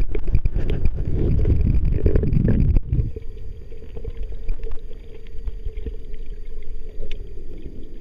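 Hot-spring water heard through a waterproof camera going under: a loud turbulent sloshing rumble with clicks that stops suddenly about three seconds in, then a quieter, steady muffled underwater drone with a faint hum.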